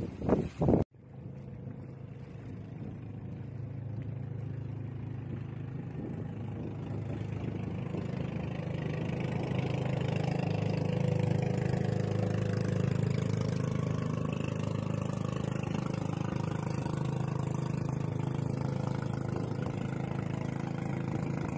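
Motorboat engine running steadily at an even pitch, growing louder over the first several seconds and then holding.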